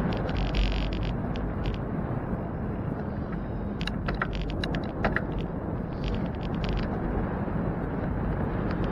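Wind and road rumble on a bicycle-mounted camera while riding, with bursts of short clattering rattles as the bike rolls over bumps, thickest about four to five seconds in.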